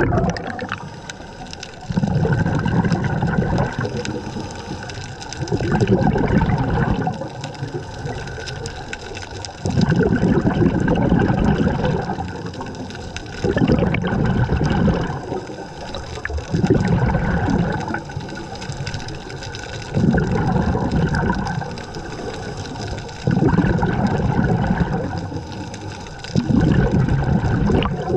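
A scuba diver breathing through a regulator underwater: bursts of exhaled bubbles gurgling past, about every three to four seconds, with quieter stretches between.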